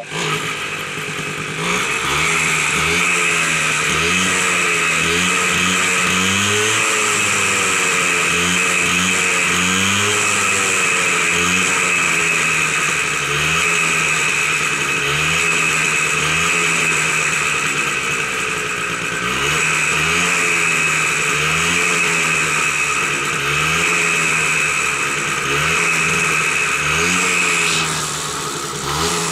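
TVS 50 Champ moped's small two-stroke engine revved hard while the moped stands still: the throttle is blipped over and over, the engine note rising and falling about once a second, with a few brief lulls at lower revs.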